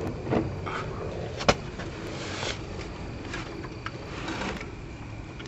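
Handling noises from work on the lawn tractor: faint shuffling and rustling, with one sharp knock about a second and a half in.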